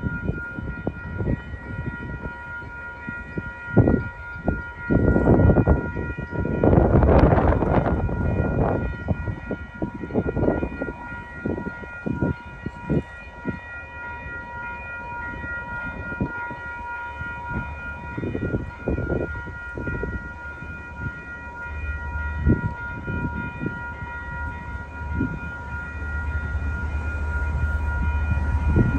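Railroad warning bell ringing with a steady high tone, over gusty wind noise on the microphone; in the last several seconds a low rumble builds as the MBTA commuter train's diesel locomotive approaches.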